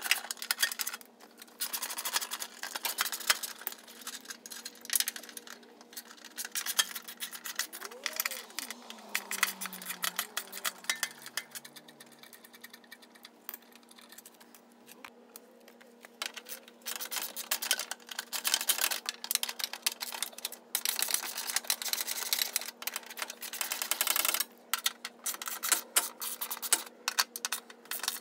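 Socket ratchet clicking in fast runs as bolts are backed out of an inner fender liner, easing off for a few seconds about halfway through.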